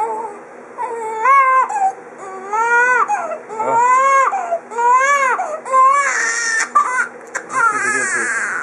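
Newborn baby crying, a run of short wails about one a second, each rising and then falling in pitch.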